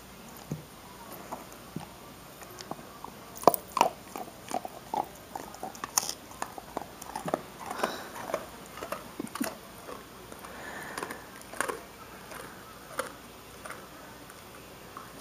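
A dog crunching and chewing a hard bone-shaped dog biscuit, in irregular bites. The bites are sparse at first, come thickly from about three seconds in, and thin out near the end.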